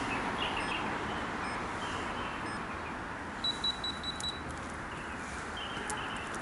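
Outdoor park ambience: a steady background hiss with birds chirping now and then. A quick run of about five high beeping pips comes a little past halfway.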